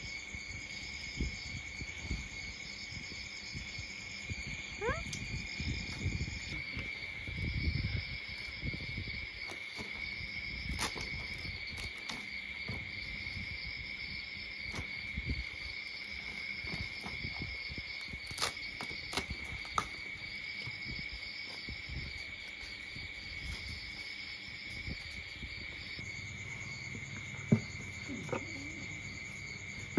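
Insects chirring: a steady high drone with a second, higher trill that pulses on and off every second or two, with scattered low rumbles and a sharp click near the end.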